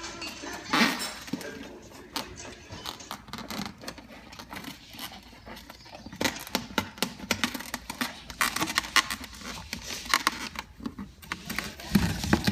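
Cane Corso puppy playing at a cardboard box: irregular scratching, scraping and tapping of paws and mouth against the cardboard and floor.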